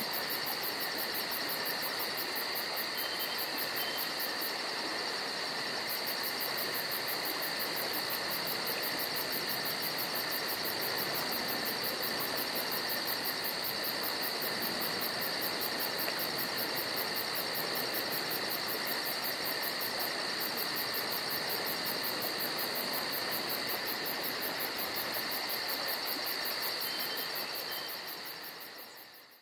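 Steady insect chorus, a continuous high trilling made of fast, even pulses, fading out just before the end.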